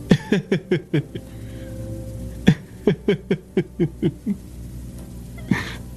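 A man laughing softly in two runs of short, quickly repeated 'ha' sounds that fall in pitch, then a sharp breath near the end, over quiet background music.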